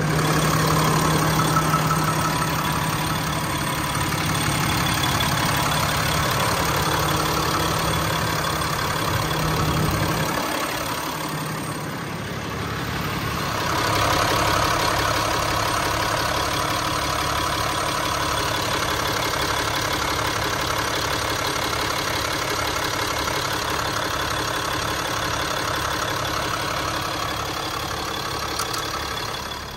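A Ram 5500's Cummins 6.7-litre turbo-diesel inline-six idling steadily with an even low pulse.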